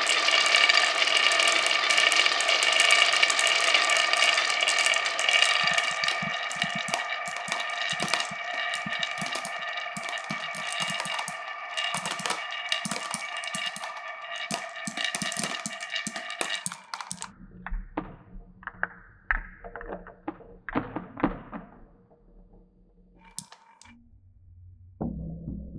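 Glass marbles running through a wooden marble run: a continuous rolling whirr with a ringing, steady tone and fast clicking for about seventeen seconds, slowly fading, then separate clacks and knocks of marbles striking the wooden pieces.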